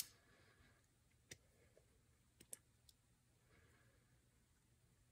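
Near silence broken by a few short metallic clicks as a Honda Spree starter Bendix and its snap ring are handled. The sharpest click comes right at the start, with a handful of fainter ones in the first three seconds.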